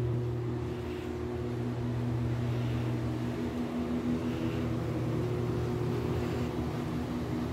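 Steady low machinery hum made of a few held tones. The deepest part is strongest at first and eases off about halfway through.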